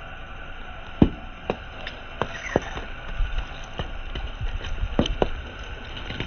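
Car tyre rolling slowly over a row of whole oranges on concrete. The fruit bursts and squashes under it in a series of sharp cracks and pops over a low tyre rumble, the loudest crack about a second in.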